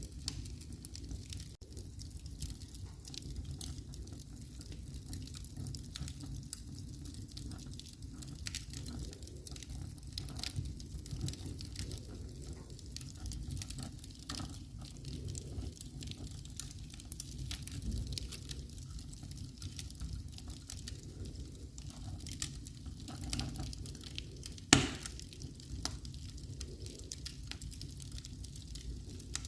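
Wood fire burning in a fireplace: a steady low rumble with scattered small crackles and pops, and one sharp, much louder pop near the end.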